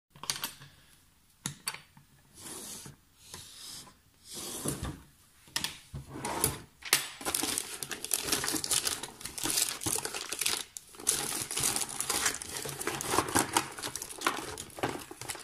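Someone rummaging through things by hand: rustling and crinkling with sharp clicks and knocks, in short bursts at first and almost without pause from about halfway through.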